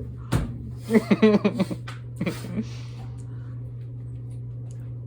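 Short bursts of a person's voice, wordless and without speech, about a second in and again around two and a half seconds, over a steady low hum.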